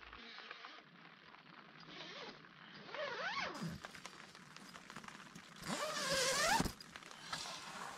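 A tent zipper pulled in two strokes, the buzz rising and falling in pitch with the pull speed. The first stroke comes about three seconds in; the second, longer and louder, comes around six seconds.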